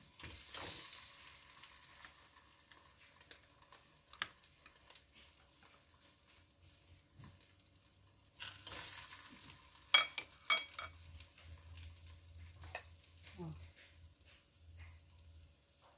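Food frying in a pan: faint sizzling and crackling oil, with a few sharp clinks of a utensil against the pan, loudest about ten seconds in.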